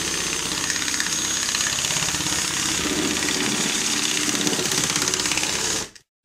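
Cordless drill spinning a sanding drum inside a round hole in a wooden box, sanding the edge of the hole to enlarge it for a dust-extraction hose. A steady whine with the rasp of sandpaper on wood, stopping abruptly near the end.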